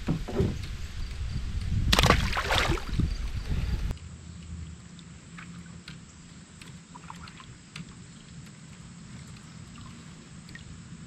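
Water sloshing and splashing around a kayak on a shallow river, loud for about four seconds, then dropping suddenly to a quieter steady trickle of water with a few faint clicks.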